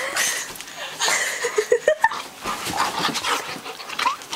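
Yellow Labrador puppy's rough play, with short high yips and whines mixed with scuffling on the bedding as it mouths a person's hands, and a woman laughing.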